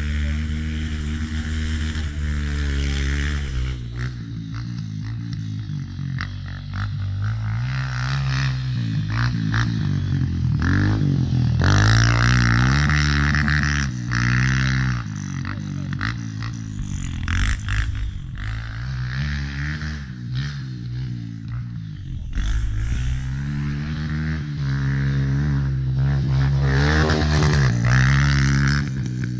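Dirt bike engine revving up and falling back again and again as it is ridden, accelerating and backing off, loudest about twelve seconds in and again near the end.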